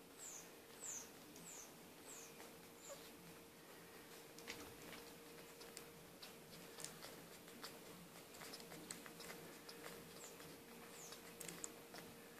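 Newborn Bichon Frise puppies squeaking and suckling while nursing. There are five short, high squeaks falling in pitch in the first three seconds and two more near the end, with faint wet clicks and smacks from suckling between them.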